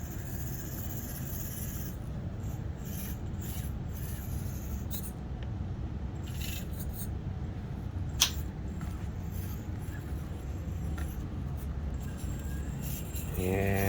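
Axial SCX24 micro RC crawler with a Furitek brushless motor crawling over rocks: its tires and chassis scrape and rub again and again over a steady low hum, with one sharp click about eight seconds in.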